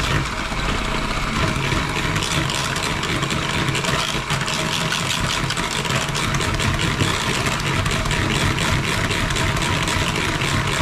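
Electric hand mixer running steadily, its twin beaters whirring through a thick butter and caramelized condensed milk cream in a plastic bowl.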